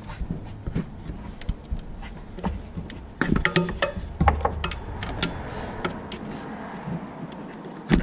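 Irregular metallic clicks and taps of a wrench being fitted onto and worked against a 12 mm alternator mounting bolt, with a few dull knocks about halfway through.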